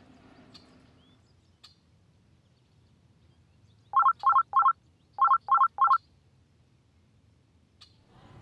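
An iPhone alarm going off: two quick sets of three short, loud electronic beeps.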